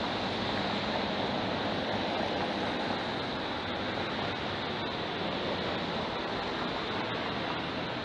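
Steady rushing noise of road traffic driving through an intersection.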